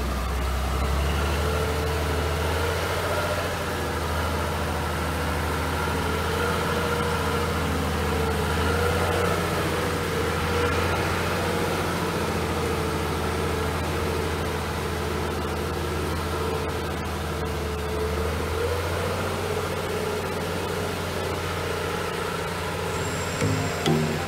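Praga V3S truck's air-cooled six-cylinder Tatra diesel running steadily at low revs as the truck crawls along in a low gear. Electronic music with a steady beat comes in near the end.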